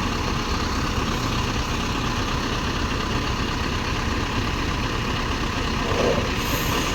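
Large diesel engine idling steadily, a continuous low rumble.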